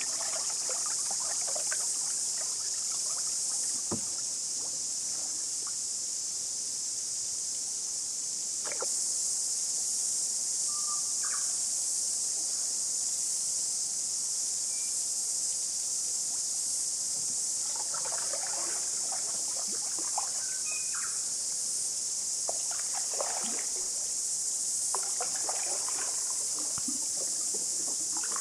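Steady high-pitched insect chorus from the bush, with a few splashy patches of canoe paddle strokes in the water, around the start and again in the second half.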